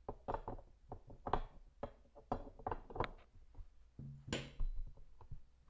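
Irregular light clicks and knocks of the HP 24ea monitor's silver stand neck and base being handled and fitted together.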